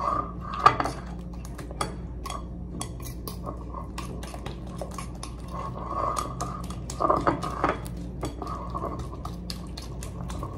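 Metal fork clinking and scraping against a ceramic plate while beating a wet batter, with many quick taps and short scrapes.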